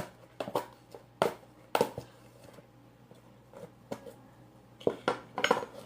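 Irregular sharp clicks and sticky smacks of hands pulling homemade glue slime that is sticking to fingers and container, in clusters about a second apart.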